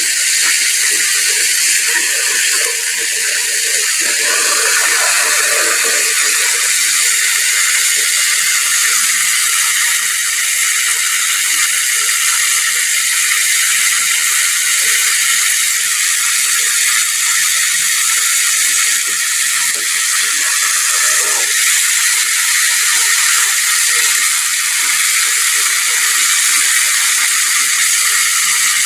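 Hot oil sizzling steadily around a whole chicken deep-frying in a pot, with a constant fine crackle.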